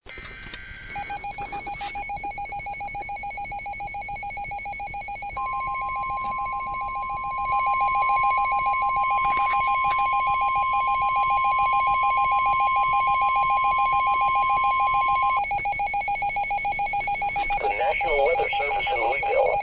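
Weather alert radio sounding an emergency warning: a fast, rapidly pulsing beep alarm, with the long steady NOAA weather radio warning tone held over it for about ten seconds in the middle. A brief burst of data-like tones comes at the very start, and a wavering sound joins near the end.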